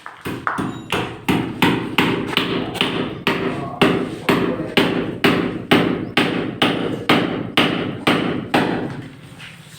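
Steady, rapid hammering: sharp blows at about three a second, each ringing briefly, stopping shortly before the end.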